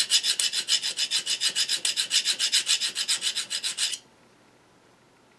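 A flat hand file rasps in quick, even back-and-forth strokes across the steel teeth of a pen-turning barrel trimmer cutter, sharpening its dull cutting edges. The filing stops abruptly about four seconds in.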